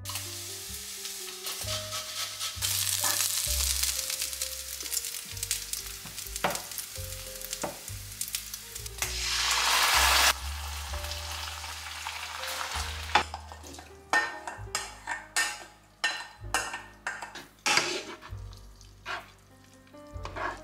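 Stir-fry sizzling in a hot non-stick frying pan as it is stirred with a wooden spoon, the hiss swelling loudly about halfway through as teriyaki sauce is poured in. In the last few seconds the wooden spoon clacks and scrapes against the pan as the noodles are tossed.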